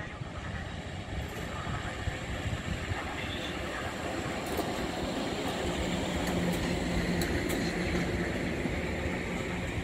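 Electric locomotive-hauled passenger train rolling past at low speed, a steady rumble of wheels on rails that grows louder about halfway through, with a few sharp clicks and a low steady hum as the locomotive passes.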